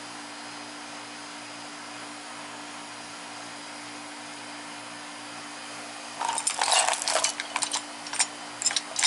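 Steady low hum, then from about six seconds in a run of sharp, irregular metal clinks and rattles from hand tools and hardware being worked while an engine bracket is bolted back on.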